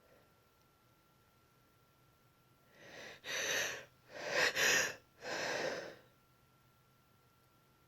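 A woman with a congested, tickly nose gasping and sneezing: four quick noisy bursts in a row about three seconds in, the loudest near the middle.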